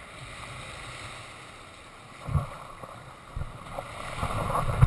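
Shallow surf washing up the sand, with wind noise on the microphone growing toward the end and a few low thumps.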